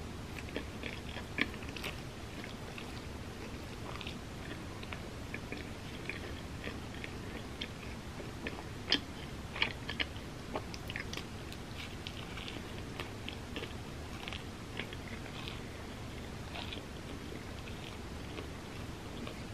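A person chewing and biting pizza and a breadstick, with many short crunches and wet mouth clicks. A few sharper crunches come about a second and a half in and again around nine to ten seconds in.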